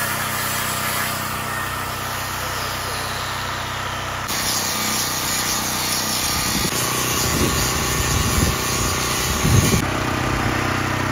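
Electric angle grinder grinding steel along a gouged crack in an excavator bucket, a harsh steady hiss. Under it a small gasoline engine-drive welder/generator runs steadily, and a few low bumps come between about six and ten seconds in.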